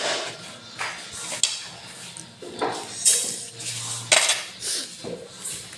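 Dishes and utensils clattering and knocking against each other: a string of separate sharp clinks and knocks, several loud ones about three and four seconds in.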